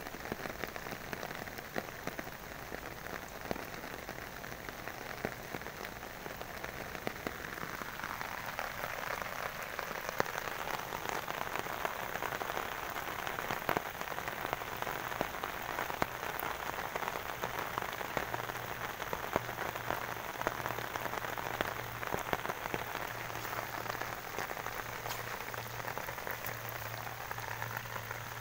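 Rain falling onto shallow standing water in a flooded rice field: a steady patter of countless drops on the water's surface, growing somewhat louder and brighter about a third of the way in.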